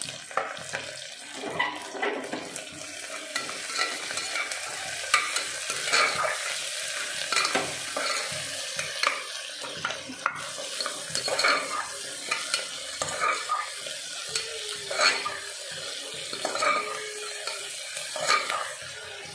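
Sliced onions, green chillies and ginger-garlic paste sizzling in hot oil in a pressure cooker, stirred with a metal spoon that scrapes and clinks against the pot about once or twice a second.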